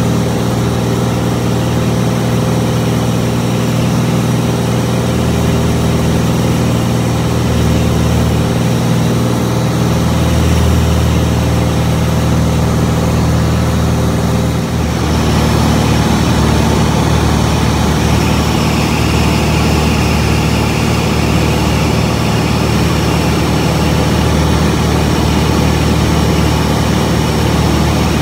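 Steady drone of a Van's RV-10's piston engine and propeller, heard from inside the cabin in flight. About halfway through, the sound dips for a moment and then carries on a little brighter and louder.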